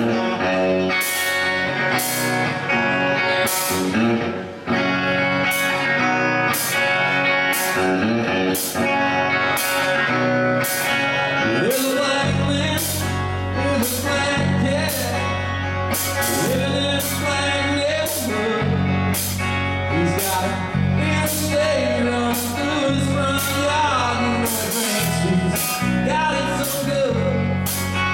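Live rock band playing: electric guitars over a steady beat of sharp hits, with a bass guitar coming in about twelve seconds in and a man singing.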